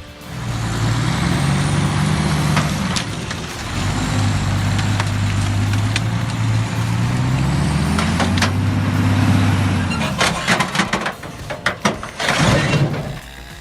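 A heavy machine's diesel engine running under load, its pitch rising and falling several times, with a cluster of sharp knocks after about ten seconds and a loud hissing burst near the end.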